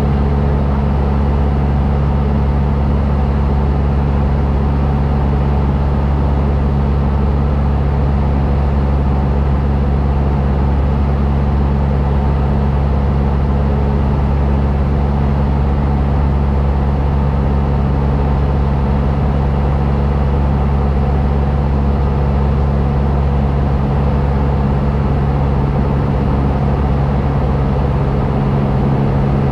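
Cessna light aircraft's engine and propeller droning steadily as heard inside the cabin, a constant low hum with no change in pitch or loudness.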